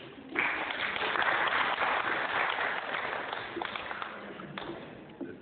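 Audience applauding, a dense patter of many hands clapping that starts about half a second in and stops fairly suddenly about a second before the end.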